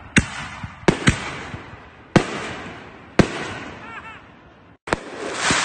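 Aerial fireworks bursting overhead: sharp bangs roughly once a second, each trailing off into a fading rumble and crackle. After a sudden break near the end comes a dense run of crackling pops.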